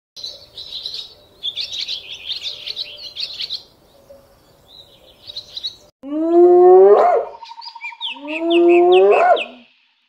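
Birds chirping and twittering at a high pitch. About six seconds in come two long whoop calls of a spotted hyena, each holding low and then sweeping sharply up in pitch. Bird chirps continue over the calls.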